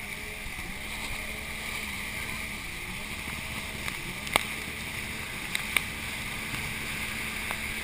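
Banana boat towed at speed behind a motorboat: a steady muffled rush of water and wind with a low, steady engine hum, heard through a waterproof action-camera housing. A few sharp clicks come about halfway through.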